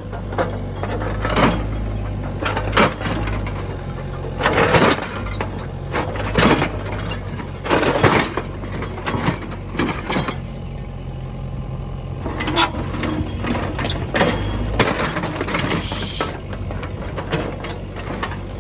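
Mini excavator engine running steadily while its bucket smashes a lawn mower, with repeated crashes and crunches of breaking metal and plastic about every second or two.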